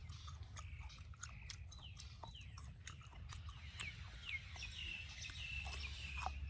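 Chickens clucking, a run of short falling calls toward the second half, over a steady high-pitched whine, with scattered sharp clicks.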